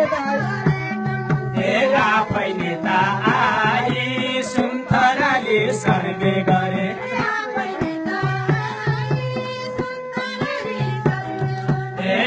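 Live Nepali deuda folk song: voices singing a wavering melody over a hand drum and sustained electronic keyboard notes.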